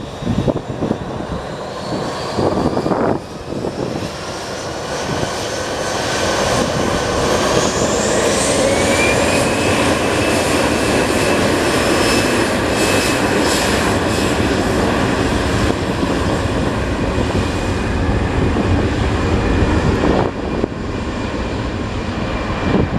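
Airbus A320-214 jet engines, CFM56 turbofans, rising in pitch over a few seconds as they spool up, then a steady loud roar with a high whine. The roar drops off sharply near the end.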